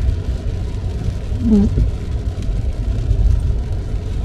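Steady low road and tyre rumble inside a car driving in the rain. About one and a half seconds in comes a short, low, pitched groan as the windshield wiper blade drags across the glass. The blades are stiff, which makes them judder and groan on each stroke.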